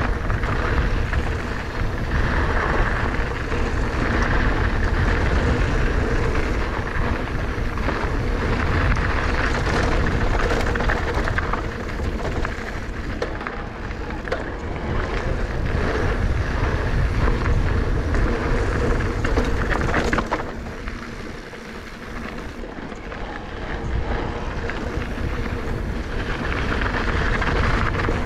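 Wind rushing over the microphone and knobby tyres rolling fast over a dirt trail on a 2019 Giant Trance E+ 2 electric mountain bike descending, with the bike clattering over bumps. It eases for a few seconds after about twenty seconds, then builds again.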